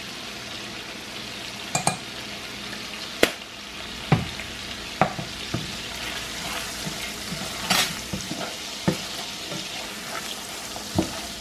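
Diced onions in melted butter sizzling steadily in a metal saucepan while a wooden spoon stirs them, with a few sharp knocks of the spoon against the pan.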